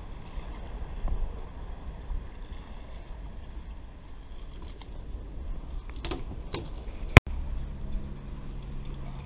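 Low wind rumble over the microphone, with a few faint brief clicks. About seven seconds in a sharp click marks a cut in the footage, after which a low steady hum runs on.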